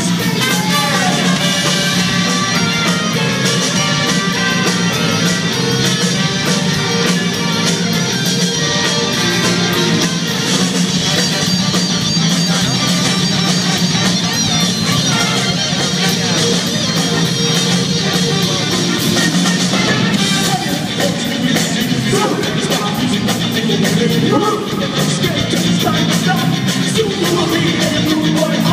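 Live rock band with a horn section playing loudly: trumpets and trombone over drums, electric bass and guitar, with some singing.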